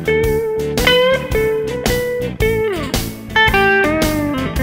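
Background music: an electric guitar playing a bluesy lead with sliding, bent notes over a steady beat.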